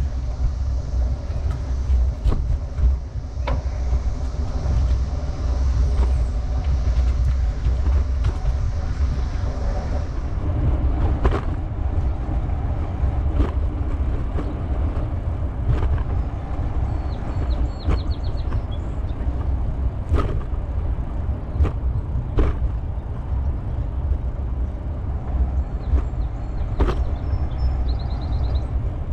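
Wind buffeting the microphone of a bicycle-mounted action camera, with steady rumbling tyre and road noise from a bicycle riding a paved path. A steady high hiss in the first third stops about ten seconds in, after which sharp knocks come every second or two as the tyres hit bumps in the path, with two short runs of rapid ticking.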